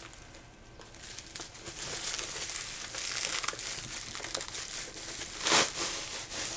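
Packaging crinkling and rustling as it is handled and opened, faint at first, picking up about a second in, with a louder rustle near the end.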